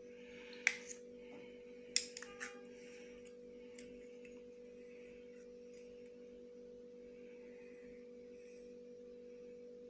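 Table knife clicking and scraping against the inside of a raw oyster shell while cutting the meat loose: a sharp click just under a second in and a small cluster of clicks about two seconds in. A steady electrical hum runs underneath.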